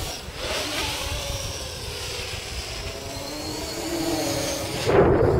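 Electric V-tail multirotor's 2212 1000 kV brushless motors and 8-inch propellers whining through a high-speed pass, the pitch gliding up and down as throttle and speed change. A low rumble of wind runs underneath, and the sound swells louder briefly near the end.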